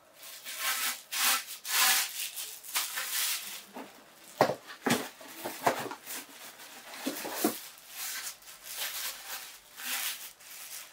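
Irregular rubbing and scraping handling noise, with a couple of short knocks about four and a half and five seconds in.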